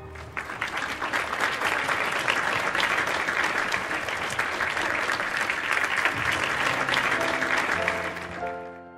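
Audience applause, steady, dying away over the last second or so as music begins near the end.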